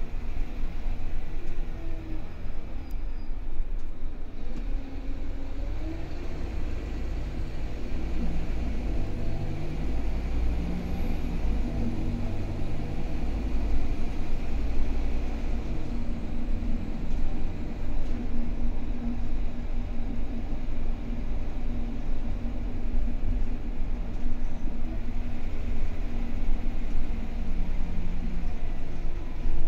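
Scania K320UB bus's diesel engine and drivetrain running under way, heard from inside the passenger cabin: a deep steady rumble with an engine note that shifts in pitch as the bus changes speed.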